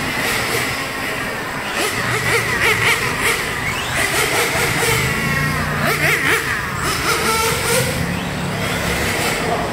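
Radio-controlled cars racing around a track, their motors repeatedly revving up and easing off in rising and falling whines as they accelerate out of corners and pass by.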